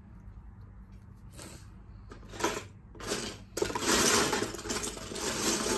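Loose plastic Lego bricks clattering and rattling as a hand rummages through a pile of them: a few sharp clicks, then a loud, dense clatter over the last two seconds.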